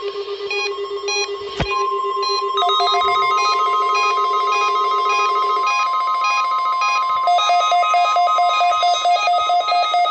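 Weather-radio alert tones: rapidly pulsing electronic beeps, like a telephone ring, joined about two seconds in by a steady single-pitched tone, the NOAA Weather Radio 1050 Hz warning alarm tone, which stops around seven seconds in while the pulsing beeps get louder.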